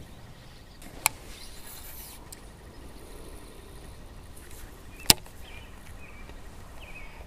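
Two sharp clicks about four seconds apart from a Lew's Super Duty baitcasting reel being handled, over faint steady outdoor noise.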